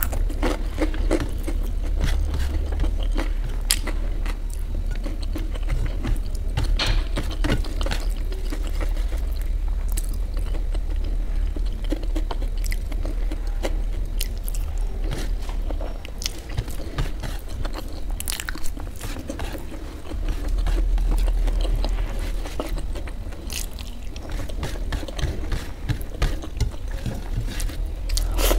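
Close-miked eating: biting and chewing crunchy fried pakoda and fried rice eaten by hand, with many short crunches and clicks scattered throughout.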